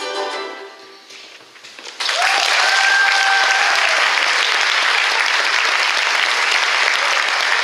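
Ukulele ensemble's final chord ringing and fading, then about two seconds in the audience breaks into loud applause that holds steady, with one long held cheer over its start.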